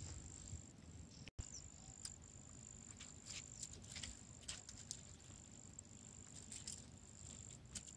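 Near silence: a faint, steady high-pitched whine with scattered soft ticks.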